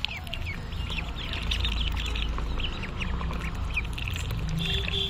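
A flock of ducklings peeping constantly while they feed, many short high-pitched peeps that mostly fall in pitch, over a low rumble. Near the end a steady high tone joins in.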